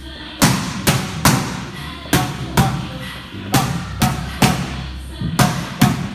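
Boxing gloves smacking into focus mitts during pad work, about a dozen sharp slaps roughly two a second with a short pause about a second in, over background music.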